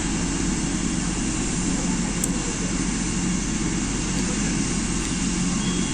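Helicopter running on the ground after landing: a steady turbine and rotor rumble with a faint, constant high whine.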